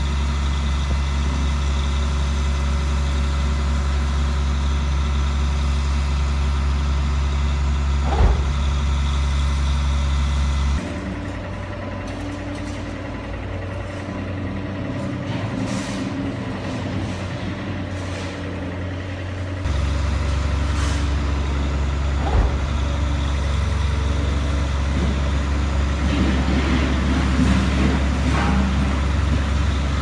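Engine idling sound of a model Scania 8x8 tipper truck, a steady low diesel-like hum. It breaks off abruptly for about nine seconds in the middle to a quieter mechanical sound with a few clicks, then returns just as abruptly. A single knock comes about eight seconds in.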